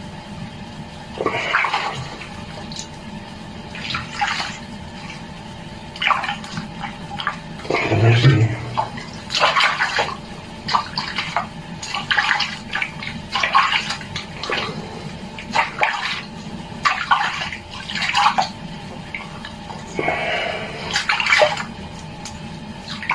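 Water splashing and sloshing in an enamel basin as a kitten is washed and rinsed by hand, in short irregular splashes. There is a louder knock about eight seconds in.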